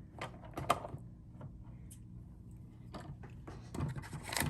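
A small toy key clicking and scraping as it is fitted and turned in the lock of a plastic toy locker: a loose fit, with scattered sharp clicks and a busier cluster of rattles near the end.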